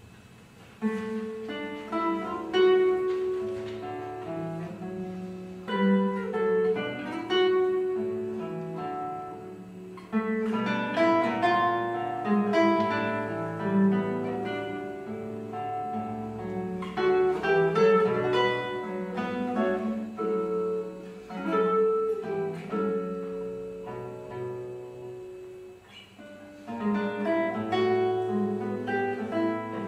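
Solo classical guitar, nylon strings plucked in chords and melody lines, starting about a second in after a quiet pause.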